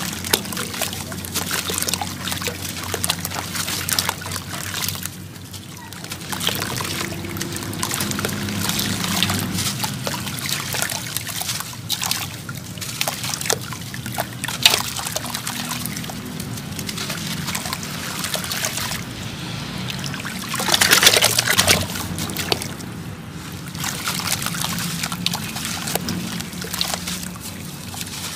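Hands crumbling and squeezing chunks of dried sand-cement in a basin of water: gritty crackling as the chunks break, with crumbled sand splashing and trickling into the water. There is a louder, splashier stretch about three quarters of the way through.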